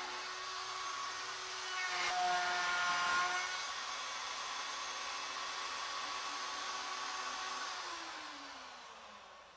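Router on a CNC mill running with a profile bit, cutting beads and coves into a square wooden leg blank; the sound grows louder for about a second around two to three seconds in. Near the end the motor's whine falls steadily in pitch and fades as the router spins down.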